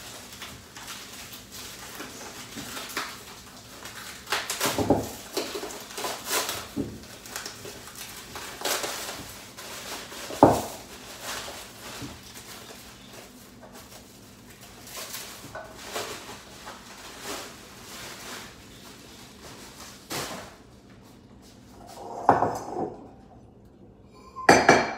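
Fruit and bowls handled on a granite kitchen countertop: scattered knocks and clinks of bowls and fruit being set down, with the rustle of a plastic produce bag. The loudest knock comes about ten seconds in, and two more sharp knocks come near the end.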